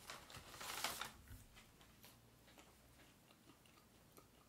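Paper fast-food bag rustling briefly as a hand pulls out a french fry, fading after about a second into near silence with a few faint ticks.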